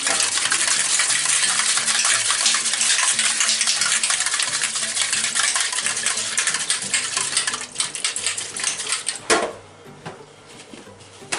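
Aerosol can of spray grease being shaken hard, its mixing ball rattling in rapid clicks; the rattle stops abruptly about nine seconds in.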